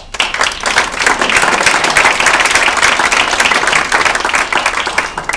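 Audience applauding, a dense patter of many hands clapping that starts abruptly and dies away after a little over five seconds.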